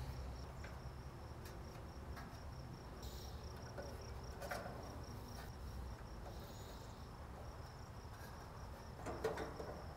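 Quiet background of low hum with a faint, steady, high-pitched pulsing trill like an insect's chirping, and a few soft clicks as spark-igniter wire connectors are handled.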